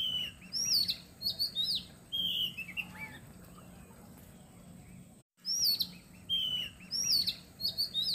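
Songbirds chirping and whistling, quick notes that sweep downward in pitch; after a brief break about five seconds in, the same stretch of birdsong plays again, as from a looped recording.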